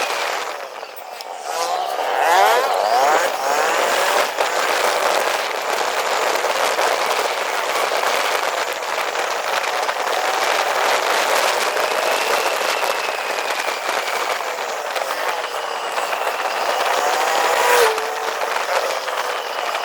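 A vehicle on the move: steady road and engine noise, with the engine's pitch slowly rising and falling.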